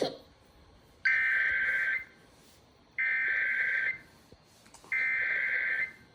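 Emergency Alert System SAME header: three bursts of high electronic data tones, each just under a second long, about a second apart, marking the start of an EAS alert message.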